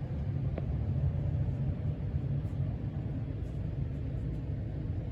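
Steady low rumble of background noise with no distinct event.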